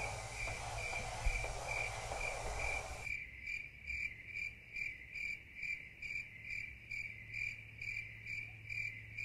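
A cricket chirping steadily, about two to three chirps a second. For the first three seconds it sits over a rough, noisy background with low thumps, which cuts off suddenly; after that the chirping goes on alone over a faint low hum.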